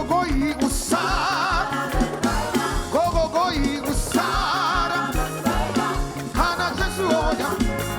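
Upbeat gospel praise band music with a steady drum beat, a moving bass line and a wavering lead melody.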